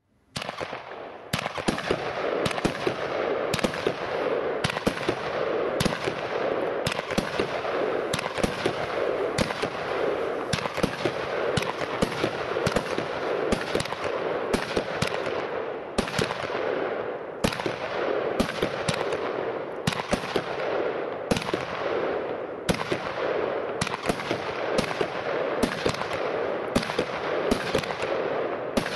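Weco Morpheus firework battery firing continuously: a dense, unbroken run of rapid shots and bangs that starts about a second in.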